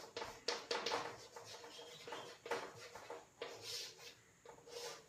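Chalk scratching and tapping on a chalkboard as a word is written and lines are drawn, in many short, irregular strokes.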